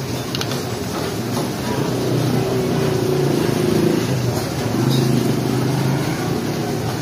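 Busy street ambience: a steady rumble of traffic with people's voices talking in the background.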